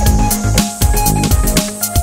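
Electronic background music with a steady drum beat, about four hits a second, over deep bass.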